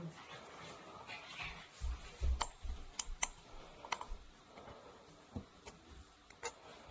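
Faint clicks and light knocks from a shower hinge being handled and taken apart as its axis pin is removed: a handful of sharp single clicks spaced irregularly, with a few dull knocks about two seconds in.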